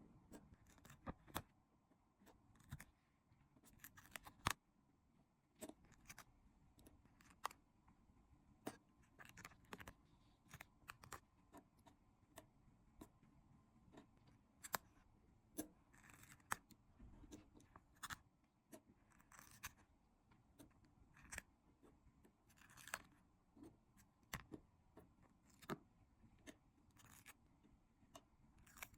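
Close-up handling of puffy 3D stickers: scattered sharp little clicks and crackles with occasional short rustling scrapes as stickers are peeled from the sheet and pressed down onto the paper scene.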